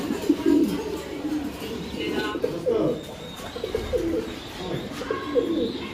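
Pigeons cooing: a run of low, repeated coos, with a brief higher chirp about two seconds in.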